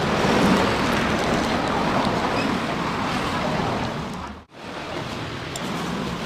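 Steady rushing background noise, like outdoor ambience, with no clear voice or tune. It cuts out sharply for a moment about four and a half seconds in, then resumes.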